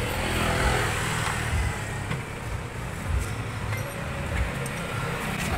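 Road traffic passing, with a low engine hum that swells over the first second or so, and a few faint metallic clinks.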